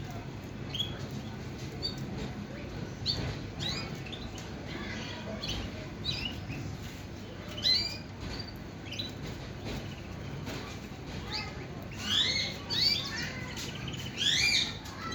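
Male Shirazi canary singing: short chirps and quick rising and falling notes, building to louder, denser phrases near the end.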